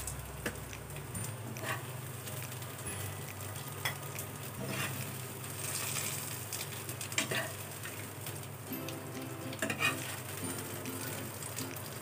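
Chicken 65 sizzling in oil in a nonstick frying pan, with a spatula scraping and knocking against the pan now and then as pieces are lifted out.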